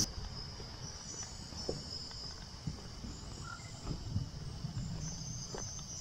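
Faint chorus of insects trilling high, typical of crickets, with a few soft low thumps scattered through.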